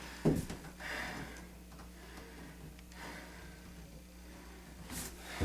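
Quiet room with a steady low hum. There is a soft knock about a quarter second in and faint breath-like noises, and a short sharp sound near the end.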